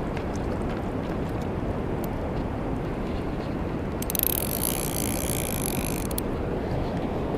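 Steady rushing of wind and sea water on the microphone. About four seconds in, a high whirring buzz lasting about two seconds comes from a Ryobi Smurf 1000 spinning reel as the rod is worked.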